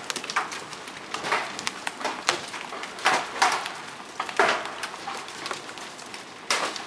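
Large hail coming down and striking the ground and hard surfaces: a steady rush with irregular louder hits from single stones, roughly one a second.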